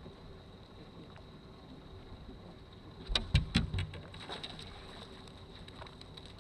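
A quick run of about half a dozen hard knocks and rattles on a boat, all within a second, about three seconds in, over a faint steady hum.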